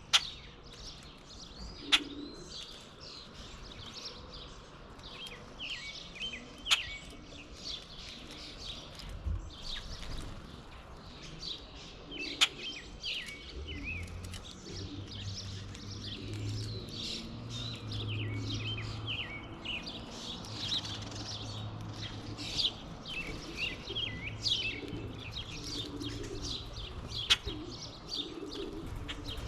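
Many small backyard songbirds chirping and twittering at a feeder, with a few sharp taps standing out as the loudest sounds. A low steady hum comes in about halfway through.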